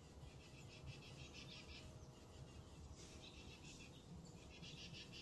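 Faint insects chirping in repeated bursts of rapid, even pulses, each burst about a second long, over a low steady rumble.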